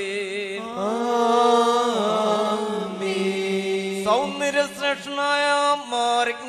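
Syriac Orthodox liturgical chant of the Holy Qurbana: voices chanting a slow melody on long held notes that glide and waver between pitches.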